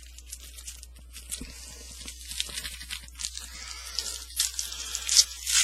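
Trading cards and their pack wrapper being handled: crinkling and rustling with many short sharp crackles, growing louder over the last two seconds or so.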